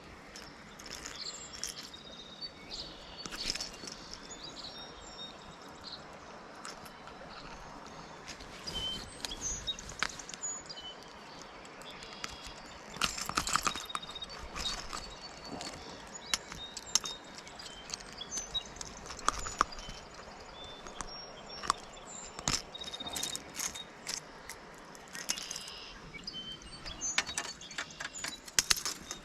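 A creek running steadily, with birds chirping and scattered short clicks and knocks.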